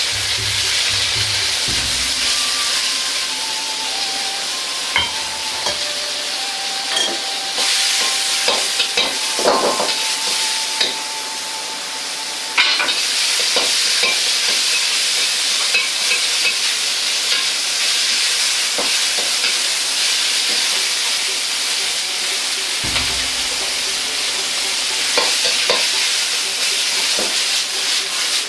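Pork, then vegetables, sizzling in hot oil in a wok while being stir-fried, with a ladle scraping and clicking against the wok. The sizzle gets suddenly louder about halfway through.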